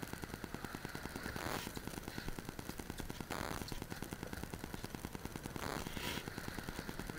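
A boat's engine running at idle, a steady rapid pulse, with a few short hissy bursts of noise about a second and a half, three and a half and six seconds in.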